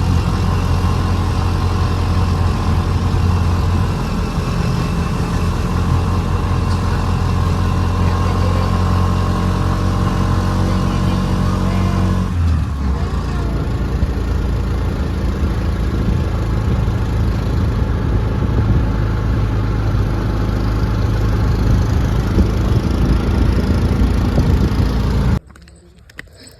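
Auto-rickshaw engine running steadily during a ride, with a brief change in the engine note about halfway through. It cuts off abruptly about a second before the end.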